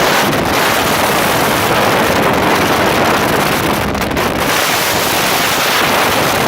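Steady rush of wind on the microphone and water noise from a Donzi speedboat running fast, with no engine tone standing out.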